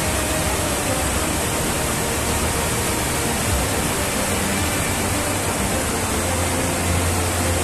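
A muddy flash-flood torrent loaded with stones rushes over a steel truss bridge deck, a loud, steady rushing of water.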